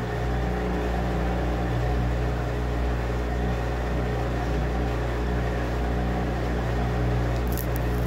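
Top-loading washing machine with a central agitator running, its motor giving a steady, even hum, with a few light clicks near the end.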